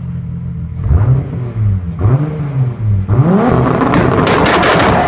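Turbocharged V6 car engine revved while stationary: three short throttle blips about a second apart, then a longer rev climbing over the last two seconds.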